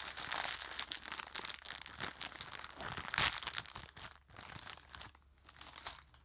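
Plastic bag crinkling and rustling as it is opened by hand and buns are taken out; the crinkling dies away about five seconds in.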